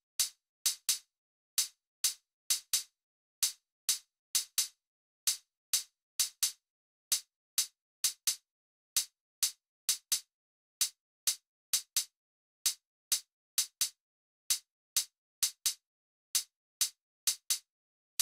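A programmed electronic percussion pattern playing on its own: short, crisp, bright hits with silence between them, in an uneven, syncopated groove of single and paired strokes.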